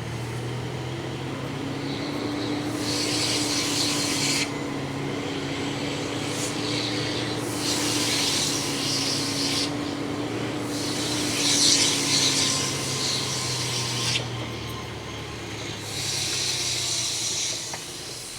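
Truck diesel engine running at low speed with a steady hum, broken four times by hissing bursts of air a second or two long from the truck's air brakes as it slows for speed bumps.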